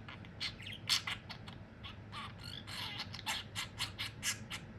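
Budgerigar chattering in a rapid run of sharp clicks mixed with a few short chirps.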